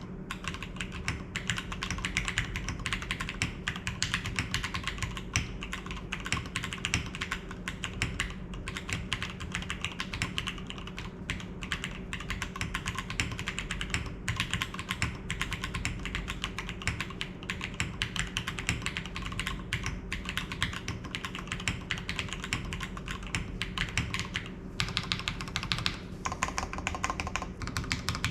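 Continuous fast typing on a custom MatrixLab Matrix 2.0 Add TKL mechanical keyboard with broken-in Cherry MX Black linear switches on a POM plate and no foam: a dense, unbroken run of keystroke clacks.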